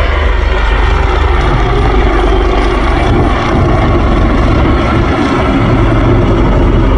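Aircraft in formation flying past low and loud, a steady engine drone with a deep rumble that holds without a break.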